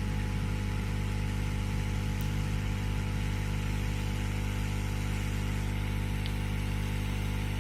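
Steady electrical hum with a stack of even overtones, unchanging throughout.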